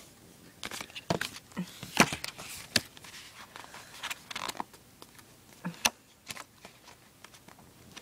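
Paper booklets and packaging being handled, with scattered rustles and light taps.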